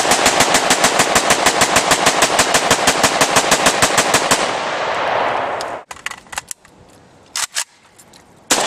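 Rapid gunfire, about ten shots a second for some four seconds, dying away into its echo; then a few separate shots, and the rapid fire starts again near the end.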